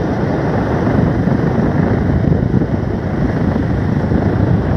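Motorcycle riding sound heard from a camera on the bike: steady, loud wind rumble on the microphone mixed with engine and road noise.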